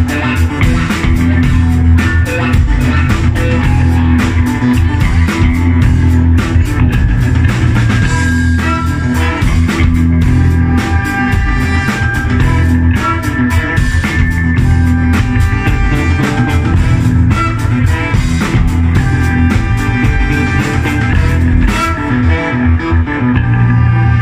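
Live band playing an instrumental passage: bass guitar and drum kit keep a steady groove while a flute plays a melody over it. The drums and cymbals drop out about two seconds before the end, leaving the bass and melody.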